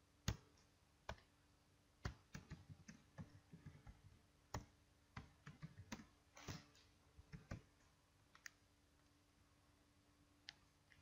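Computer keyboard being typed on: irregular key clicks in short runs, most of them in the middle, with a pause of about two seconds near the end.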